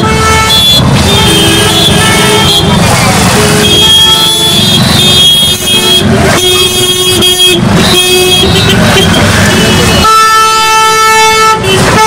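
Congested street traffic thick with honking: many vehicle horns sounding in turn and overlapping, several held for a second or more, with a long horn blast near the end. Beneath them runs the steady low rumble of auto-rickshaw and motorbike engines.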